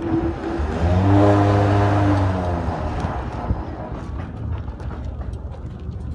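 A motor vehicle's engine passing, swelling to a steady hum about a second in and fading out by the middle, its pitch dropping slightly as it goes. Light scattered clattering and knocking continue underneath.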